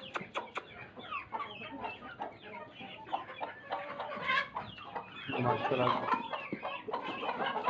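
A flock of chickens and chicks clucking and peeping as they feed, a busy overlapping chatter that grows louder about two-thirds of the way through.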